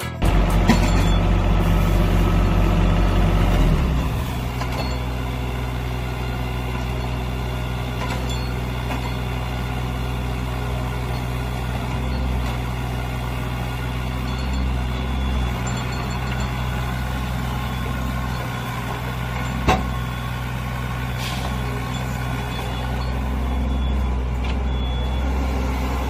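Kobelco SK23 mini excavator's diesel engine running steadily, louder for the first few seconds before settling, with a single sharp click about twenty seconds in.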